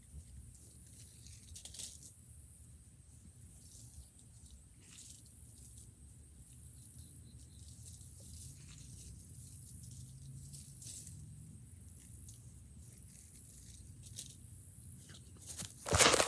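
Faint outdoor background with scattered light rustles and crackles. Near the end, loud close rustling and crunching as the phone lying in the grass is handled.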